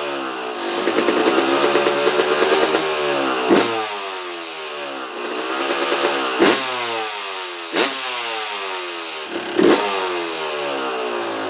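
A 2004 Yamaha YZ250 two-stroke dirt bike engine running, its throttle blipped so the revs rise and fall several times, with a few sharp cracks along the way. It sounds healthy but rich, which the owner puts down to a too-rich pilot jet or a float set too high, with the choke off.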